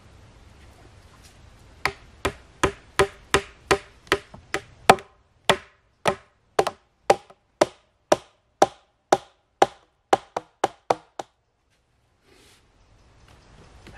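Hammer blows driving a nail into the joint of a wooden post and crossbar: about two dozen strikes, roughly two a second, each with a short ring, stopping a few seconds before the end.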